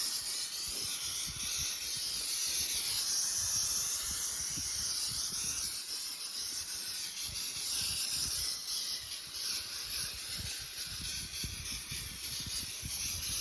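Aerosol spray can hissing in one long continuous spray onto the knotters of a Massey 10 baler, cutting off just after the end.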